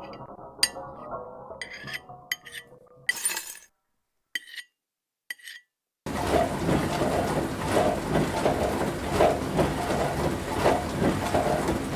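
Glasses and cutlery clinking together with a ringing tone, the clinks thinning out to a few isolated ones. About six seconds in, a continuous busy clatter of dishes starts.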